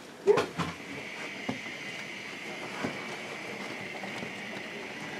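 OO-scale model steam locomotive running along a model railway layout: the steady thin whine of its small electric motor, with a sharp knock about a third of a second in.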